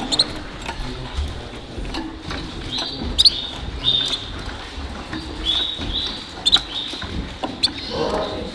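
Caged show canaries calling: short, high, clear chirps repeated every second or so, over sharp clicks and a low hall murmur.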